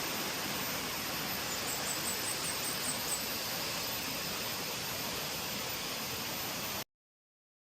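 Steady rushing roar of a waterfall, with a quick series of about eight short, high chirps a couple of seconds in; the sound cuts off suddenly near the end.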